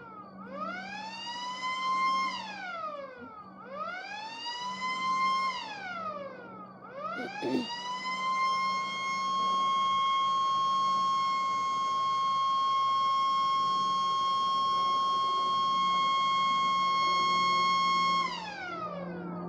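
A siren running a test: a wail that rises, holds briefly and falls three times, about every three seconds. It then climbs to a steady high tone held for about eleven seconds and falls away near the end.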